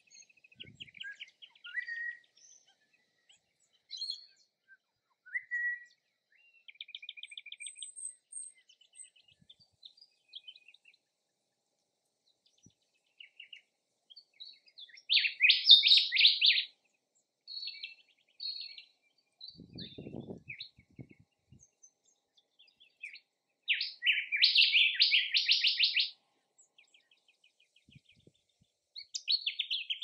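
Small songbirds chirping and calling in short, scattered phrases, with two louder runs of rapid trilled notes about halfway through and again near the end. A brief low rumble comes between them.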